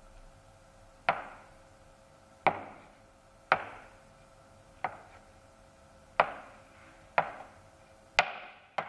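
Chef's knife chopping down through a chilled log of potato lefse dough and knocking on the floured cutting board: eight sharp chops, roughly one a second, the last two close together.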